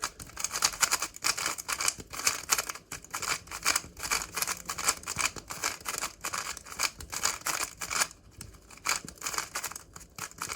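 MoYu Super Weilong magnetic 3x3 speedcube being turned fast, a quick run of clicking, rasping layer turns with short pauses near the end. The cube is freshly lubricated and has a bit of a muted sound.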